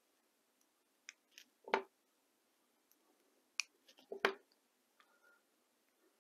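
BBs clicking into place as they are pressed one at a time into the mock shells of a CO2 Schofield replica revolver. A few short sharp clicks, two of them louder, about two and a half seconds apart.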